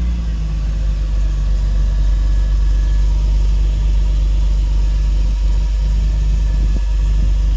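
1993 Mercedes 300 Cabriolet's straight-six engine idling steadily just after a cold start, heard at the tailpipe as a loud, low, even exhaust note.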